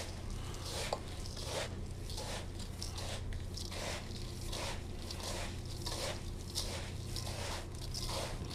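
Hands kneading and squeezing wet coarse salt mixed with flour and egg whites in a stainless steel bowl: a gritty crunching repeated about twice a second as the salt-crust paste is worked together.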